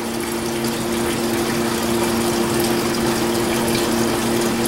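Gasoline-thinned oil draining in a steady stream from a riding mower's engine into a container, a sign that fuel has flooded the crankcase. A steady low hum runs underneath.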